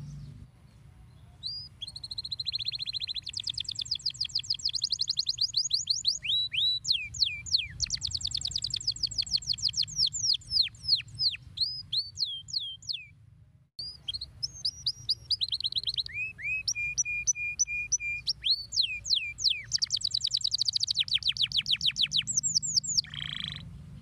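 Domestic canary singing: long runs of very rapid trills and strings of quick falling whistled notes. The song comes in two long bouts with a sudden brief break about halfway.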